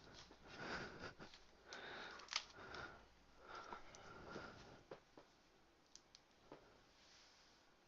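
Faint handling noise of a laptop being put back together: soft rustles and light taps, a few small sharp clicks about six seconds in, dying away to near silence near the end.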